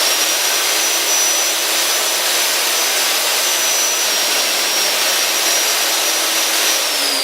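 Magnetic base drill's electric motor running at full speed: a loud, steady high whine over a rushing hiss. Near the end the whine begins to drop in pitch while the noise stays loud.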